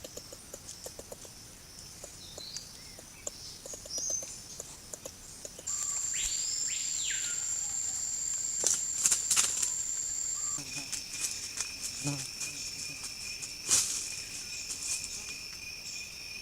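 Rainforest ambience: a steady high-pitched buzzing chorus of insects, whose pitch changes abruptly twice, with a rising-and-falling bird call about six seconds in and a few scattered clicks and taps.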